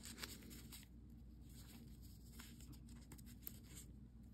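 Faint rustling and a few light ticks of small paper faux-stamp stickers being shuffled and sorted by hand.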